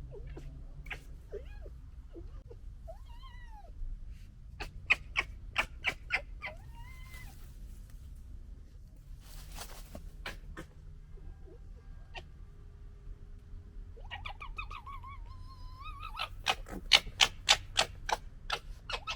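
Young red foxes gekkering: two runs of rapid stuttering clicks, about five seconds in and again louder near the end, between arching, wavering whines. A short rushing hiss comes about ten seconds in.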